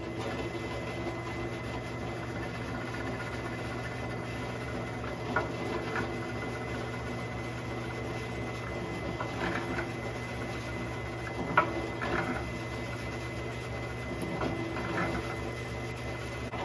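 Drill press running steadily, its bit boring into the end of a wooden axe handle, with a few sharp clicks along the way.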